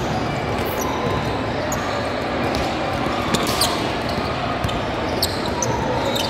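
Basketball game in a gym: the ball bouncing on the court, with short sharp high sounds scattered through and a steady background of voices.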